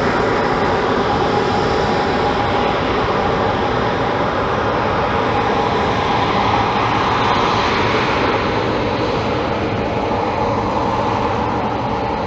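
Boeing 737-800 with CFM56 engines, a loud, steady engine noise as the jet rolls out along the runway after touchdown. A brief swell comes about two-thirds of the way through, and the noise eases a little near the end.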